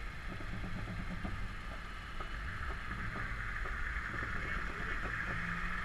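Steady low engine rumble and road noise of a slow-moving vehicle, with a steady hiss above it and faint scattered ticks.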